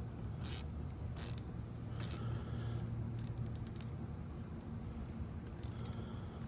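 Ratcheting hex driver with an H5 bit tightening the shift lever's bolt: short metallic ratchet clicks about a second apart, then a quick cluster near the end, over a steady low hum.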